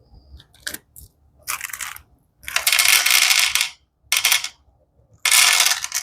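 A Skittles packet being opened and handled: several separate bursts of noise, the longest lasting about a second in the middle and another shorter one near the end.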